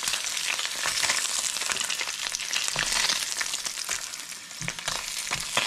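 Small spot fillets sizzling and crackling in hot butter in a nonstick frying pan. A few light clicks come as metal tongs lift the fillets out.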